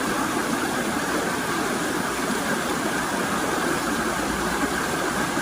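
River water rushing and flowing, a steady even noise with no changes.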